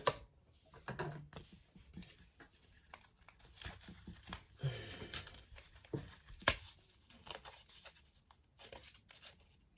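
Nylon seatbelt webbing and thread being handled and worked by hand for stitching: faint rustling and scraping with scattered small clicks, and one sharp click about six and a half seconds in.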